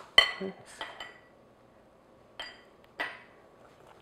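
A metal utensil clinking against a glass mixing bowl while orange glaze is stirred: several short ringing clinks, the loudest near the start, then a pause and two more clinks later on.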